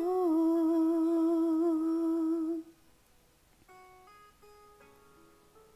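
A woman's voice holds one long sung note with a gentle vibrato for about two and a half seconds, then stops; soft single notes on a plucked string instrument follow quietly.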